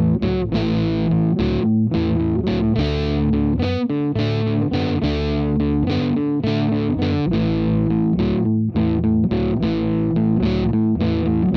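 Background rock music led by distorted electric guitar, with bass and notes struck in a steady rhythm.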